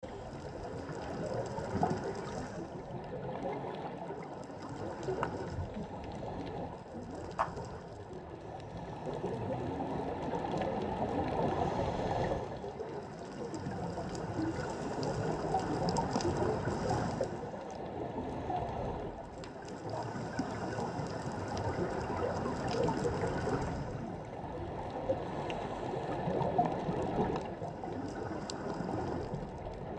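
Underwater ambient noise heard through a GoPro's waterproof housing: a muffled water rumble that swells and fades every few seconds, with occasional sharp clicks.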